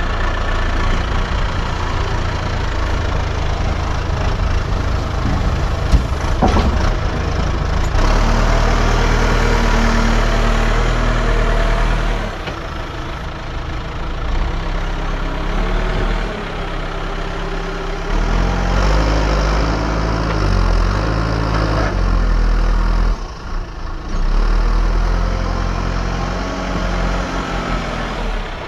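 Diesel engine of earthmoving machinery running steadily, its engine note shifting up and down several times as the load changes, with one sharp knock about six seconds in.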